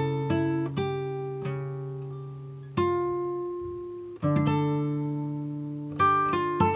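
Music played on a plucked string instrument: single notes and chords struck about every one to one and a half seconds, each left to ring and fade out.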